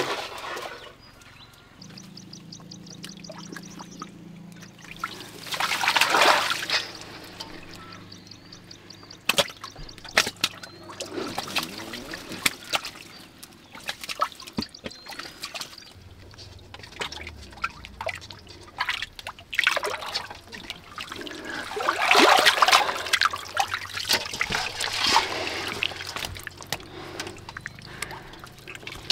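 Hands groping through a muddy, water-filled pit for fish, sloshing and splashing the muddy water, with trickling as mud and water drip back. There are louder splashes about six seconds in and again around twenty-two seconds in.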